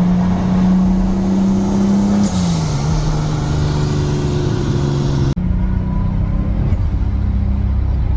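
Turbocharged car engine pulling, then about two seconds in the throttle lifts and the HKS SSQV blow-off valve, fitted with a 3D-printed star-shaped insert with a small cone, vents with a brief whoosh and a little flutter as the engine pitch drops. The engine keeps running steadily after a sudden break about five seconds in.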